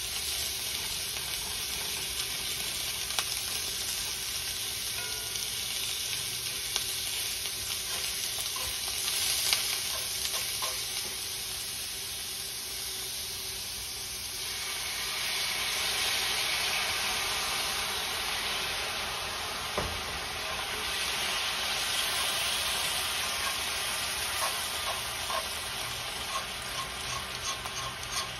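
Thinly sliced beef chuck sizzling in a hot cast-iron skillet. About halfway through, sukiyaki sauce is poured into the pan and the sizzle swells and brightens. Near the end, metal tongs click against the pan as the meat is turned.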